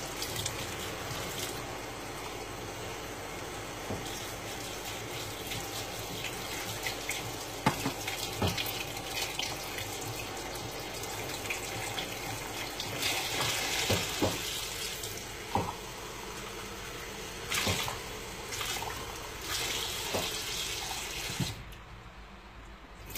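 Kitchen tap running into a sink while dishes are washed by hand, with cups and dishes clinking now and then. The running water stops shortly before the end.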